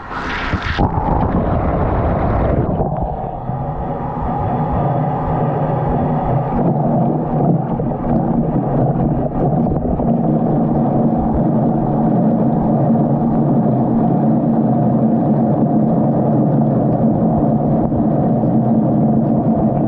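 Washing machine filling and churning with water, heard muffled and low, as from a waterproof GoPro inside the machine. A steady wash of water and motor rumble, dullest in its upper range after about three seconds.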